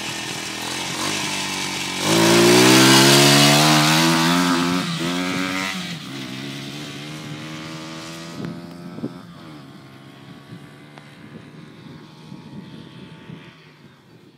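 A 125cc pit bike engine running, then revving hard as the bike pulls away about two seconds in. The pitch climbs in steps with brief dips, then the sound fades steadily as the bike rides off into the distance.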